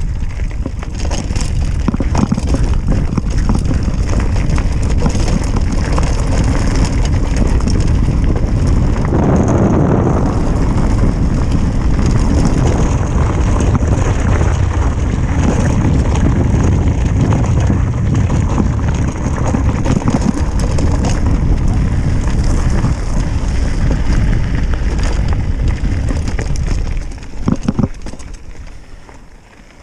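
Mountain bike descending a dirt trail at speed: wind rushing over the microphone and tyres rumbling over rough ground, with frequent small knocks and rattles. It dies away near the end as the bike slows.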